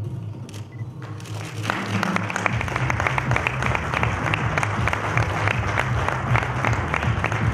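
Audience applauding, starting about a second and a half in and continuing, with music playing underneath.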